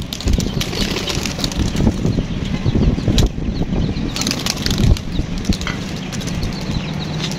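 Pigeons flapping their wings as they flutter up and land, an irregular run of short flaps and sharp clapping strokes.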